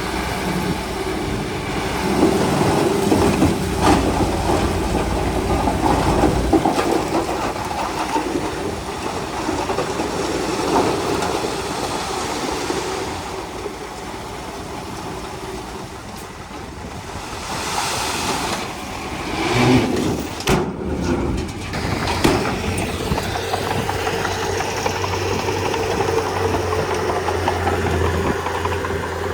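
Komatsu D31P crawler bulldozer's diesel engine running under varying load, louder in the first few seconds. A few sharp knocks come about twenty seconds in.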